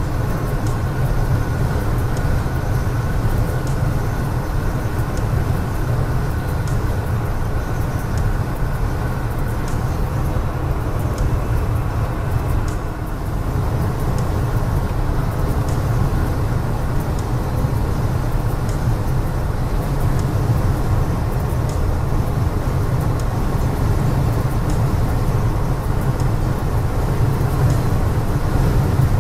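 Semi truck's diesel engine and tyres running steadily at highway speed, heard from inside the cab as an even low rumble with road noise.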